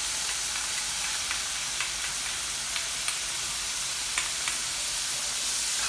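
Chicken strips sizzling as they fry in olive oil in a pan, a steady hiss with a few light clicks scattered through it.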